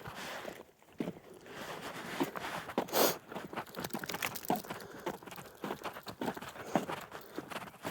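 Footsteps of a person walking at a steady pace, about two steps a second, with a brief louder burst of noise about three seconds in.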